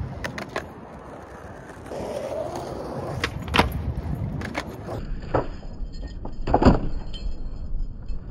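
Skateboard wheels rolling on concrete, with several sharp clacks of the board hitting the pavement as the skater pops and lands; the loudest clacks come about three and a half and six and a half seconds in.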